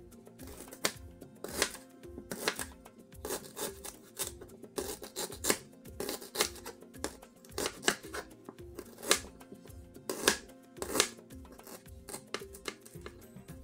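Kitchen knife slicing through fresh ginger root onto a plastic cutting board, a sharp chop roughly every second, over background music.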